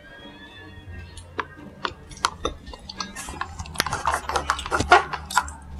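Plastic straw working in a sealed boba milk-tea cup close to the microphone: a run of clicks and crackling scrapes as it is sipped from and jabbed up and down through the lid, getting busier about two seconds in.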